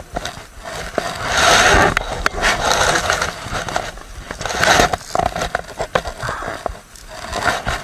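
Rustling and scraping with scattered sharp clicks, loudest in two stretches about one and a half and five seconds in.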